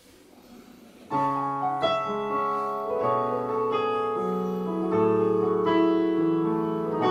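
Electronic keyboard played with a piano sound: slow, sustained chords over bass notes, coming in about a second in and changing about once a second.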